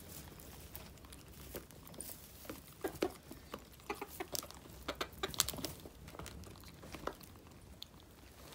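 Hens (a silkie, a Cochin and two silver hens) pecking wet corn and crumble feed from a clear plastic tub: quick, irregular beak taps and clicks, thickest through the middle.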